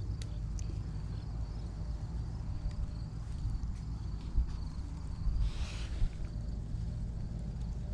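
Wind buffeting the microphone as a steady low rumble, with a faint steady high-pitched trill behind it and a few light clicks; a short rustle about five and a half seconds in.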